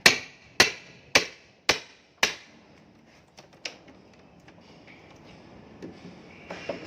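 A series of five sharp, evenly spaced knocks about half a second apart, each ringing briefly, like hammer blows on something being opened. They are followed by a few faint clicks and handling noises.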